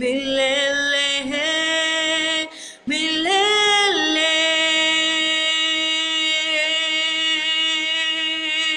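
A solo voice singing a Swahili gospel song without accompaniment, drawing out long notes. An ornamented held note gives way to a short breath just before 3 s, then the voice rises and settles into one long steady held note.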